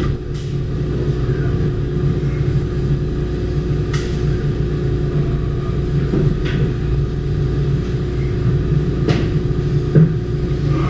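Steady low mechanical rumble, engine-like, with a few short sharp clicks or clanks scattered through it.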